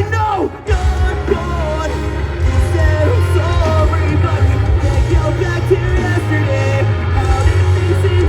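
Rock band playing live at full volume with singing vocals over a steady bass; the music dips briefly about half a second in, then carries on.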